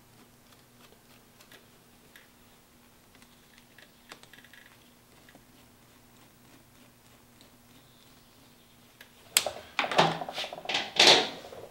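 Sparse soft clicks of hands working at the fuel-hose band clamps under a motorcycle's fuel tank, over a faint steady hum. About nine seconds in come a couple of seconds of loud rustling and knocking as a shop rag is stuffed in under the fuel lines.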